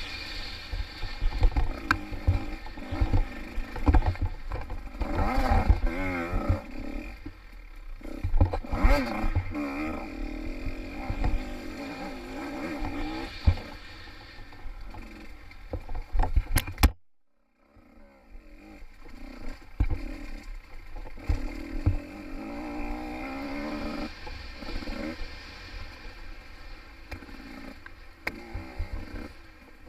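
Small-bore two-stroke dirt bike engine revving up and down as it is ridden hard along a woods trail, heard from a helmet-mounted camera, with frequent low thumps and knocks. The sound drops out almost completely for about half a second a little past the middle.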